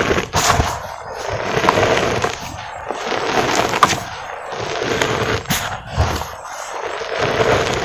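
Hands crumbling a dry cement lump and pressing through loose cement powder in a metal bowl: gritty crunching and rustling that swells and eases every couple of seconds, with sharp crackles scattered through it.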